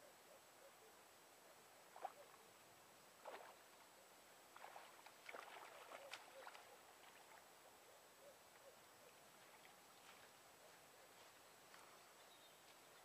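Faint water splashes from a hooked carp thrashing in the shallows as it is landed, a cluster of splashes about two to six seconds in and a few smaller ones later.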